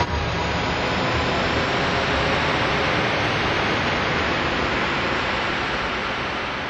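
Steady, fairly loud hiss of noise like static, with no tune or voice in it, dying away slightly toward the end.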